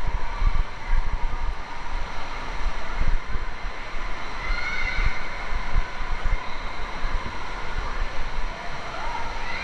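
Rushing, splashing water and the echoing din of an indoor water park, with low rumbling on the microphone. A faint high call rises over it about halfway through and again near the end.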